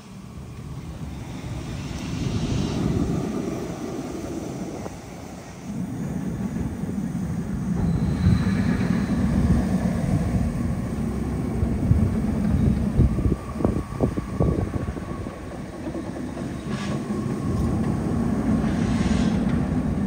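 Steel roller coaster train running along its track on a test run, a deep rumble that swells and fades as the train passes through the layout.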